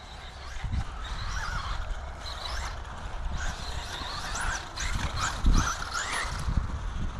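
Brushless electric motor of a Traxxas Bandito RC buggy (Velineon VXL-3s system) whining up and down in pitch as the throttle is worked, over low thumps and rumble.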